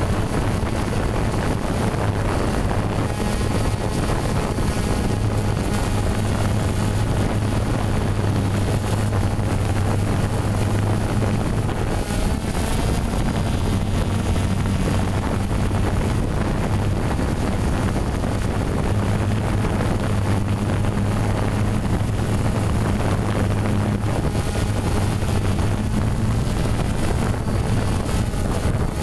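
Drone's motors and propellers droning steadily, heard through the aircraft's own onboard camera microphone, as a low hum with a hiss of wind over it.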